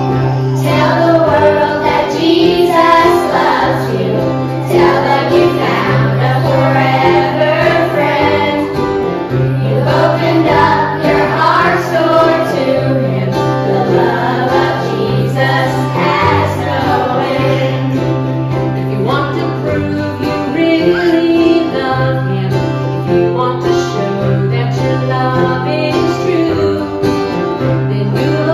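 Children's choir singing, a woman's voice leading, accompanied by acoustic guitar.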